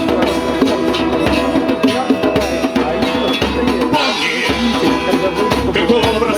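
A band playing live: a dense mix of instruments over a steady drum beat.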